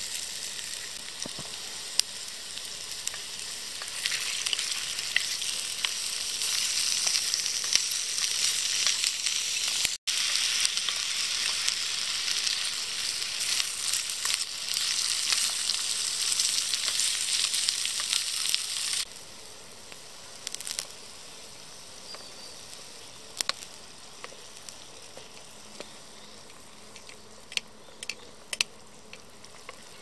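Food sizzling in hot oil in a small frying pan, with occasional sharp taps and scrapes of stirring. The sizzle drops out for an instant about ten seconds in and stops abruptly about two-thirds of the way through, leaving only a few faint taps.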